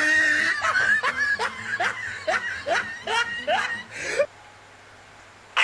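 A person snickering: a rapid run of about ten short, breathy laughs, each rising in pitch, that cuts off suddenly about four seconds in.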